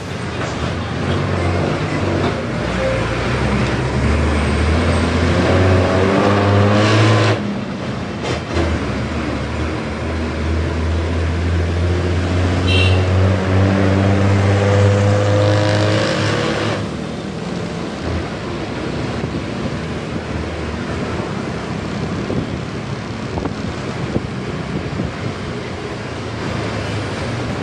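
Motorcycle engine and wind heard from the rider's seat. The engine note rises under acceleration, drops off at a gear change about seven seconds in, climbs again for several seconds, then settles to a steady cruise.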